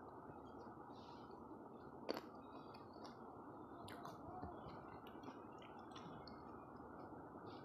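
Faint clicks of green grapes being picked off the bunch on a plastic tray, a clearer one about two seconds in and another about four seconds in, over a steady low hiss.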